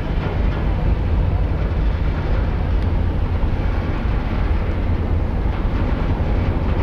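Ferry's diesel engines running in harbour: a steady deep rumble with a hiss over it.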